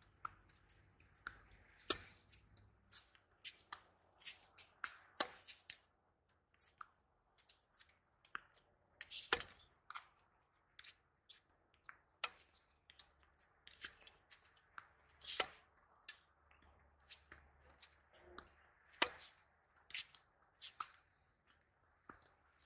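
Tennis balls struck by rackets and bouncing on a hard court during a rally: sharp pops at irregular intervals, the loudest about 9, 15 and 19 seconds in.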